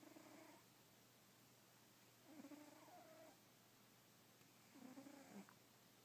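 Overweight pet cat snoring faintly in its sleep, three pitched snores about two and a half seconds apart.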